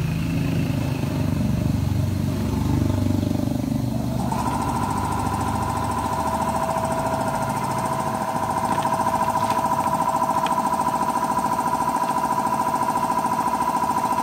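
Air compressor switched on and running steadily. A low rumble comes first, then about four seconds in a steady whine comes in and holds.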